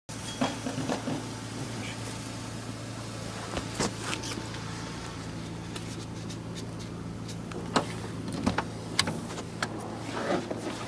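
A car's steady low running hum, with scattered short clicks and knocks over it.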